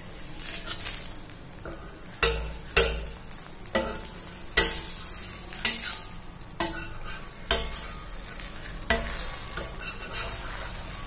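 Steel spatula scraping and knocking against an iron dosa tawa, about ten sharp strokes, as the cooked dosa is loosened from the pan. A light sizzle runs underneath.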